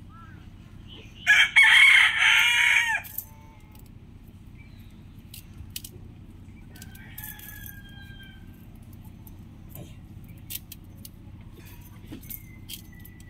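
Rooster crowing: one loud crow of about two seconds, starting about a second in. A much fainter, falling call follows around seven seconds, over low background hiss with a few faint clicks.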